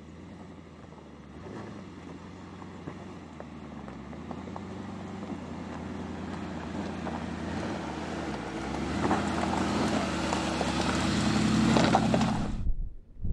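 Mercedes-Benz G500's twin-turbo V8 running at low revs while its tyres crunch and pop over loose rocks and gravel at crawling speed. It grows louder as the SUV passes close by, then cuts off suddenly near the end.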